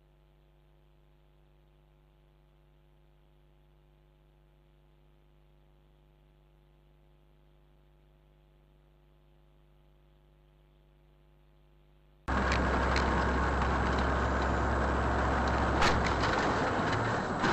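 A faint steady electrical hum. About twelve seconds in it cuts suddenly to loud, steady road and engine noise from a moving vehicle, heavy in the low end, with one sharp click a few seconds later.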